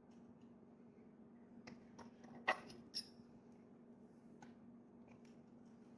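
Quiet room with a faint steady low hum, broken by two small sharp clicks about half a second apart near the middle.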